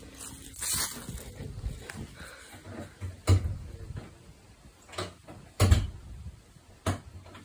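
A few sharp knocks and bumps, about five, at irregular intervals, with low thuds under them.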